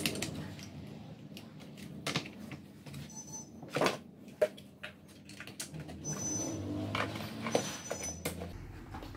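Parts of a Bajaj Majesty ICX7 induction cooktop being handled and set in place: scattered knocks and clicks of plastic and metal as the induction coil is seated in the housing and the top cover is fitted back on.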